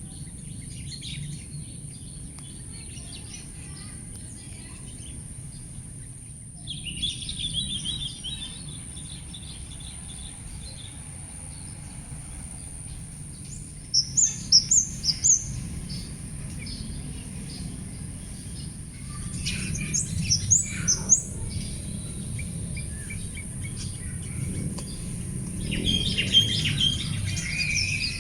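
Small birds chirping and calling on and off. There is a short run of chirps about seven seconds in, a quick series of loud high notes around the middle, more calls a little later and a busy burst near the end. A steady high-pitched hum and a low outdoor rumble run underneath.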